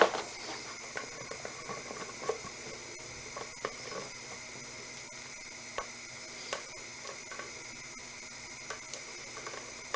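Light, scattered clicks and taps of plastic pet-fountain parts being handled and fitted together, over a faint steady background hiss.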